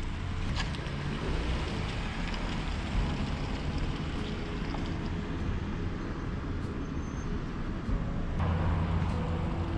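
Motor vehicle engine running as it drives off, a steady low rumble that grows louder about eight and a half seconds in.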